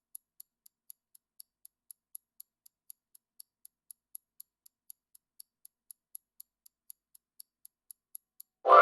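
Countdown clock sound effect ticking about four times a second, marking the answer time in a quiz. Near the end a loud, ringing chime with several tones sounds as the time runs out.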